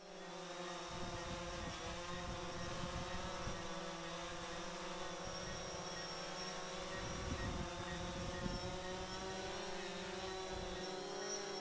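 Small drone hovering high in the sky, a faint, steady buzz of several held tones, over an irregular low rumble of wind on the microphone.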